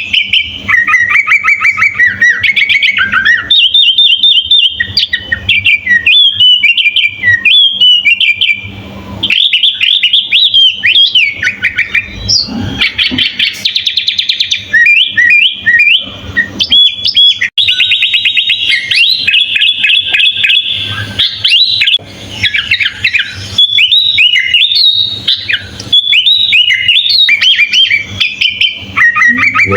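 Sooty-headed bulbul (kutilang) singing almost without pause: loud, rapid runs of chirps, trills and short whistled phrases, broken only by a few brief gaps.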